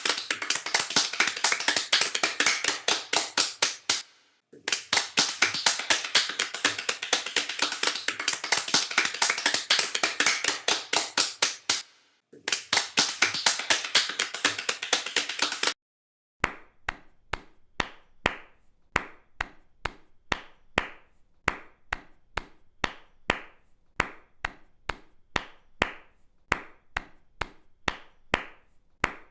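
Hands clapping: first dense applause from many people in three bursts with brief breaks, then, from about halfway, a single pair of hands clapping steadily at about two claps a second.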